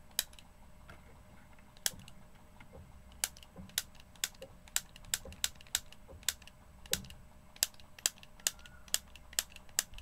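Piezo lighter igniter clicked over and over, each press snapping a spark: a series of sharp clicks, sparse at first, then about three a second.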